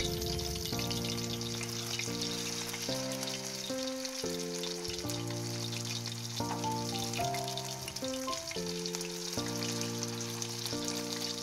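Masala-coated seer fish steaks shallow-frying in hot oil, a steady crackling sizzle. Background music plays along with it, a slow melody of held notes.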